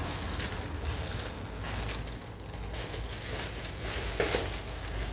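Packaging of a new CV joint being handled and opened: irregular rustling and crinkling, with one sharper, louder crackle about four seconds in.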